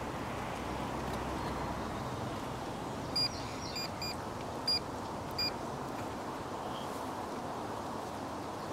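Smartphone key beeps: about five short, high electronic beeps at uneven intervals starting about three seconds in, as a payment is keyed in. They sit over a steady low outdoor hum of distant traffic.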